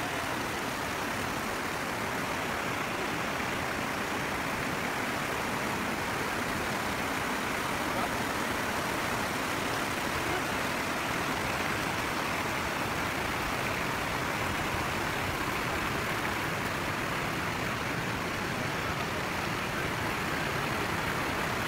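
Steady rushing of a rocky mountain river running over small rapids.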